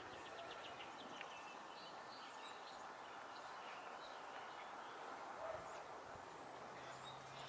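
Quiet outdoor ambience: a steady background hiss with scattered faint bird chirps. A low hum comes in near the end.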